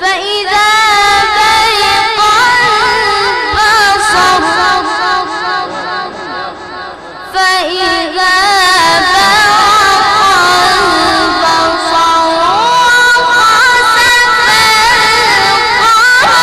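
A boy's voice reciting the Quran in melodic tajweed style: long, drawn-out phrases with ornamented pitch turns, a short breath pause about seven seconds in, then phrases that climb higher toward the end.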